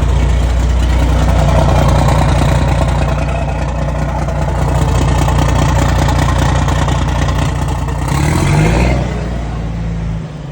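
A new Volvo FH truck's straight-six diesel engine rumbling loudly at raised revs through its exhaust. Near the end the revs rise briefly and then fall back. The speaker suspects the engine is chipped.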